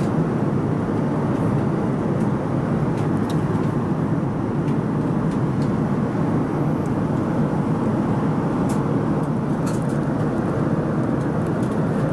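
Steady cabin noise of a Boeing 787 Dreamliner in flight: an even rush of airflow and engine noise, with a few faint ticks.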